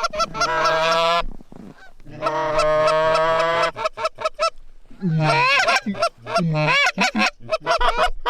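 Canada goose honking: two long drawn-out honks, then from about five seconds in a quick run of short honks and clucks.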